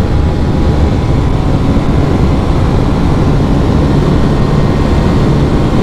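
Bajaj Pulsar NS200's single-cylinder engine running steadily near the top of its revs in sixth gear, the bike still gaining speed at around 120–130 km/h, with a heavy rush of wind over it.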